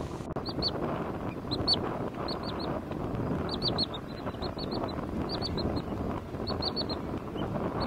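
Wood sandpiper giving short, high chip calls in quick clusters of two to five notes, repeated every second or so. A steady low rumble sits underneath.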